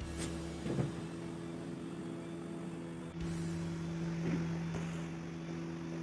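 Plywood table-saw extension board being handled on the wooden saw table, with a few light wooden knocks, the loudest a little under a second in, over a steady low hum.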